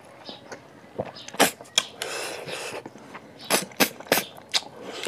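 Close-miked eating of snails by hand: sharp wet smacks, clicks and slurps as the meat is sucked from the shells, with a longer hissing suck about two seconds in.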